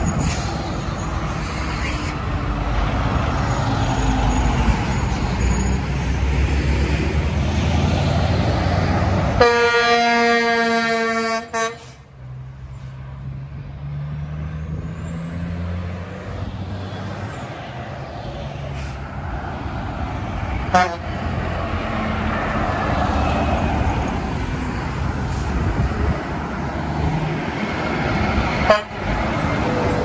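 Heavy road traffic with trucks passing. An air horn sounds once, a third of the way in, as a single steady note for about two seconds, and then a truck engine's note rises as it passes.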